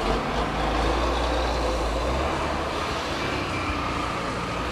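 Heavy traffic heard from a Honda CG 150 Titan motorcycle moving slowly past a large truck on a wet road: a deep, steady engine rumble, strongest in the first two seconds or so, over a hiss of traffic and road noise.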